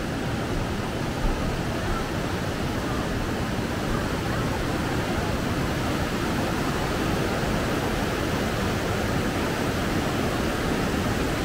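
Whitewater river rapids rushing steadily, an even wash of noise without breaks.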